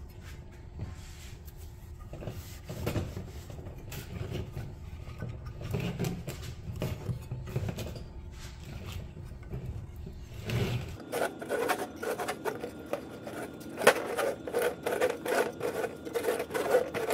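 Recoil starter of a Johnson 5.5 HP outboard being rewound by hand: the pulley is turned counterclockwise in its housing to wind up the recoil spring, giving rubbing and scraping sounds. About two-thirds of the way through this gives way to a fast run of clicks, with one loud click among them.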